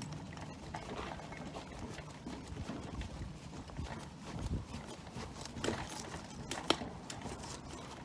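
Irregular light knocks and clicks of hand work with tools and parts, with two sharper knocks, about a second apart, in the second half.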